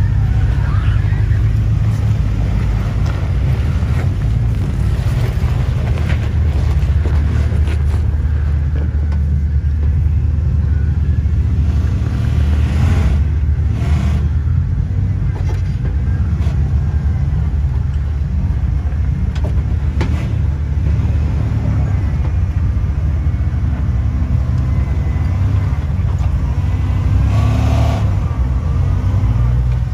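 Lifted Toyota pickup trucks' engines running at low revs as they crawl over rocks, a steady deep rumble, with a few short sharper noises about halfway through and near the end.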